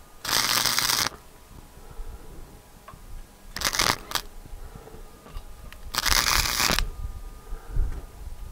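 Wire-feed welding arc crackling in three short bursts, the first and last close to a second long and the middle one shorter: tack welds being laid on a steel exhaust pipe.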